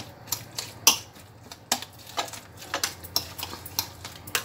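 A utensil stirring chopped eggplant, peppers and tomatoes in a serving dish, making irregular clicks and scrapes against the dish.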